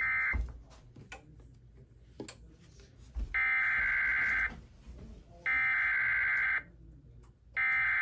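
Emergency Alert System SAME header tones: three identical raspy digital data bursts, each about a second long and about a second apart, with a brief burst at the very start. This is an EAS alert header being received by a TFT EAS 911 decoder, here for a severe thunderstorm warning.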